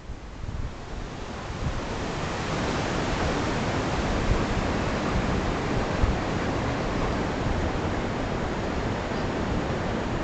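Steady rushing noise of wind buffeting the microphone mixed with ocean surf, building up over the first two seconds and then holding steady.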